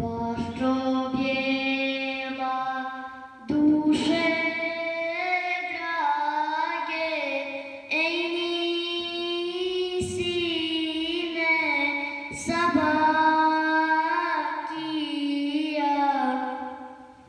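A single unaccompanied voice chanting a religious melody in long, ornamented phrases, sliding and wavering between held notes, with short breaks between the phrases.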